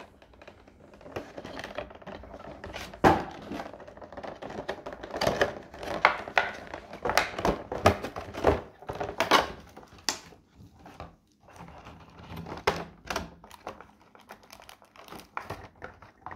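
Clear plastic blister packaging being handled and pried open, crinkling and crackling with many sharp clicks and knocks.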